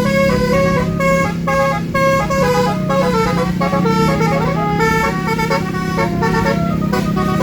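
Basuri musical vehicle horn playing a quick melody, its tones stepping up and down several times a second over a steady low drone.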